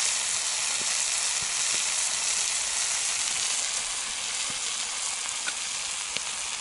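Potatoes, honey mushrooms and meat frying in a saj pan over a campfire: a steady sizzle with a few small pops.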